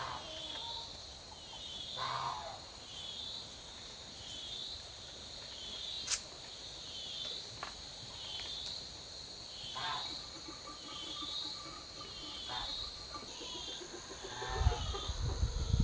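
Insects chirping in a steady rhythm, about one high chirp a second, over a continuous high buzz, with a few faint animal calls and a sharp click. A low rumble comes in near the end.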